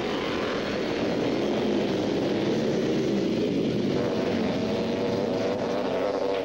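Engines of a pack of ice-racing motorcycles running at high revs together as they accelerate hard off the start, a dense mix of wavering engine notes.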